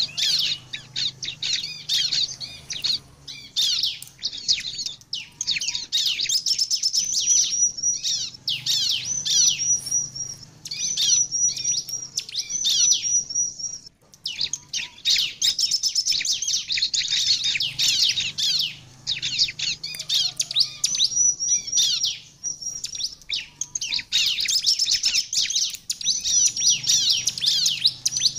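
Bar-winged prinia (ciblek) singing vigorously: fast, high chattering chirps in long runs broken by brief pauses, with a stretch of repeated short high notes partway through.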